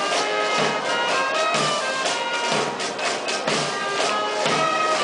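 Military brass band playing a march, with a bass drum beating steadily about once a second under sustained brass notes.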